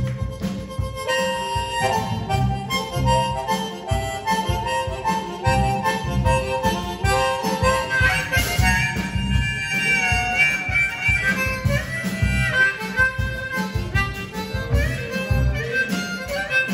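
Amplified harmonica solo, the harmonica cupped in the hands against a handheld microphone, playing held and bent notes over the band's steady beat.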